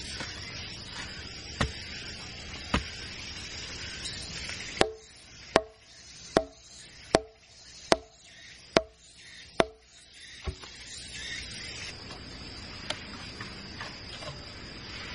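Bamboo stake being driven into the ground with a wooden club: two lighter knocks, then a run of eight sharp blows a little under a second apart, each with a short hollow ring from the bamboo.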